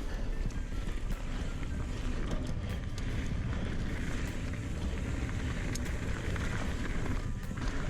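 Ibis Ripmo AF mountain bike riding down a dirt trail: a steady rumble of tyres on the ground and wind buffeting the microphone, with scattered sharp clicks and rattles from the bike.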